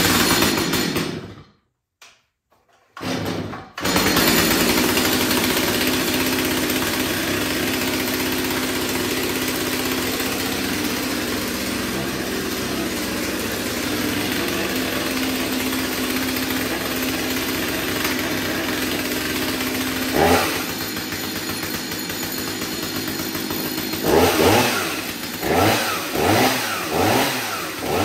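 Stihl 025 chainsaw's two-stroke engine pull-started, catching a few seconds in and then idling steadily. A short blip of throttle about twenty seconds in, then four quick revs near the end.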